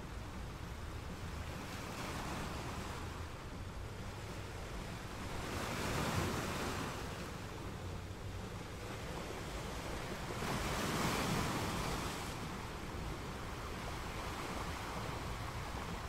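Ocean surf: a steady wash of breaking waves, swelling louder twice, about six and eleven seconds in.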